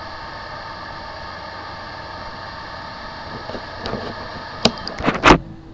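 Hard drive running with a steady whir and hum, then a handful of sharp clicks and knocks near the end, the loudest about five seconds in, after which the whir stops.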